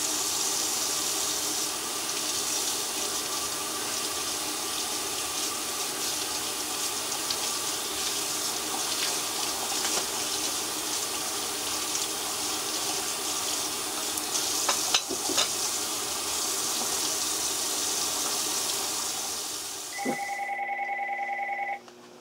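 A steady hiss with a few faint clicks, then, about twenty seconds in, the hiss stops and a landline telephone rings once with a fast electronic trill lasting about two seconds.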